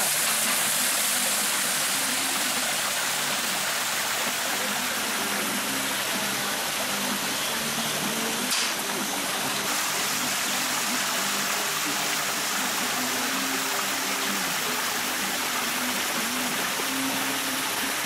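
Natural stone grotto waterfall pouring into a pool: a steady, even rush of splashing water.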